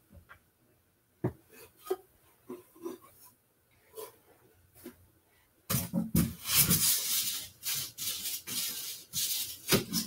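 A few light knocks and taps, then from about six seconds in a stretch of rubbing and scraping as the beehive's metal-covered top cover is handled and packed back into its box.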